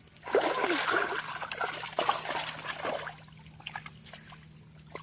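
Water splashing and sloshing for about three seconds, starting half a second in and then dying away.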